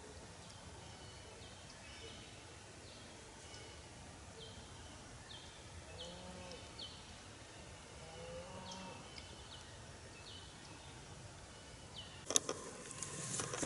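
Outdoor woodland ambience: small birds chirp over and over with short high notes, and two low, drawn-out calls from a distant animal come about six and eight and a half seconds in. Near the end there is sudden loud rustling and clicking handling noise close to the microphone.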